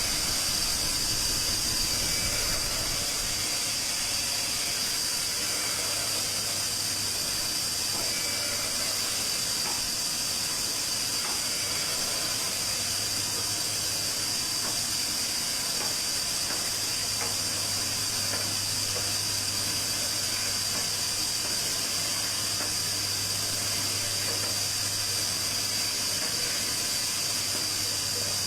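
Steady, unchanging high hiss with a low hum underneath.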